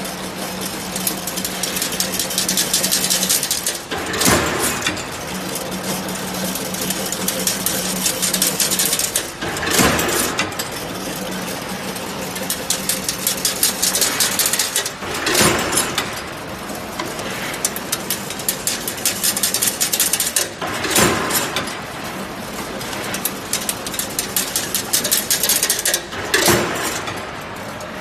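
Automatic 3000 mm chain link fence weaving machine running. A motor hum sits under a fast metallic rattle, and a louder clatter comes back about every five and a half seconds, five times, in a regular machine cycle.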